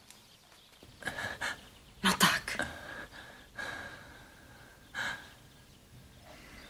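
A person breathing hard: four or five loud, noisy breaths or gasps about a second apart, the strongest about two seconds in.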